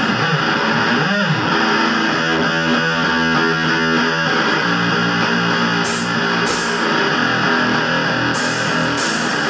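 Live band music led by distorted electric guitar, with a quick bent note about a second in and a few short bursts of high hiss in the second half.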